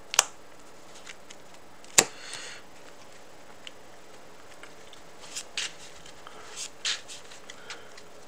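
Sleeved trading cards being handled on a playmat: two sharp taps as cards are set down, then a few short swishes of cards sliding, in small clusters through the middle and later part.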